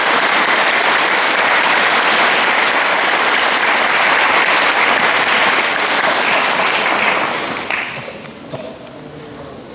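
Audience applauding steadily, then fading out about seven to eight seconds in.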